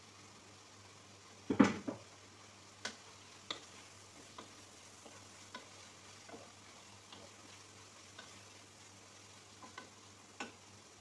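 Wooden spoon stirring chicken and carrots in a large pan over a faint frying sizzle, knocking against the pan now and then, with the loudest clatter about one and a half seconds in.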